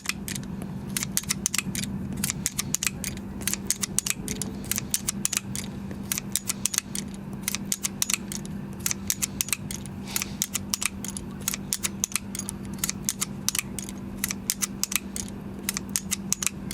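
Mr.Logo 16740 ratchet pruning shears being worked, the ratchet and blades clicking sharply many times in quick, uneven succession, over a steady low hum.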